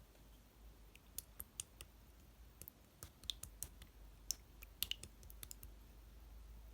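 Yogurt slime being pressed and worked by hand, giving faint, irregular sticky clicks and small pops.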